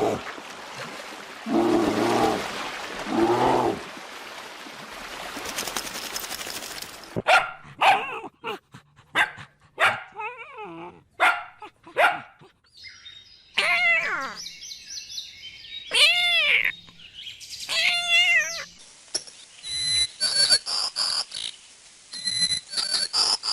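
A run of different animal calls one after another, mostly dogs barking and whining in rising-and-falling cries, with short high chirping calls near the end.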